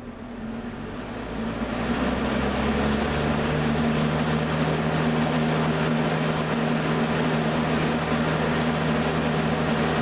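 Vintage Westinghouse AW12-1 box fan, driven by a Marco motor, coming up to speed on its high setting. A motor hum and a rush of air build over the first two seconds or so, then hold steady.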